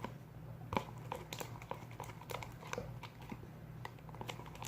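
Glue slime being stirred with a spoon in a bowl: irregular small sticky squelches and clicks, a few a second.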